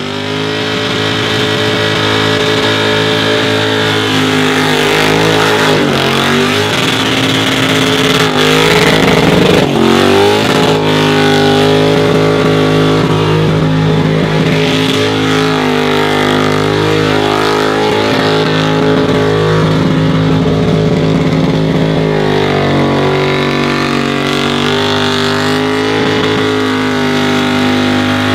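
A car's engine held at high revs through a long tyre-smoking burnout. Its pitch dips and climbs again a few times, around five and ten seconds in.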